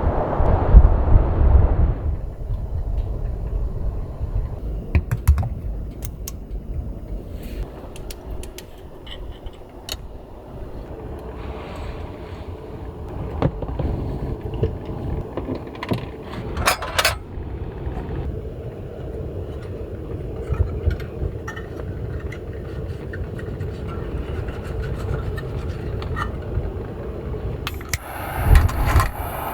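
Gusting wind making a steady low rumble, loudest in the first two seconds, with scattered small clicks, knocks and rattles of objects being handled.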